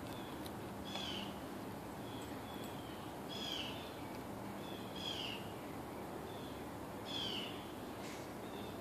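An animal giving short calls that fall in pitch, repeating about every two seconds, with a steady low background hum.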